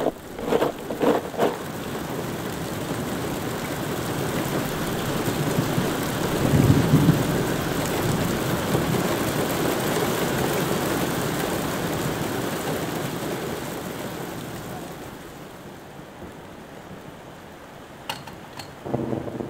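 Steady rain falling, with a low rumble of thunder swelling about six to seven seconds in and the storm noise dying away over the last few seconds. A few short knocks sound in the first second or so.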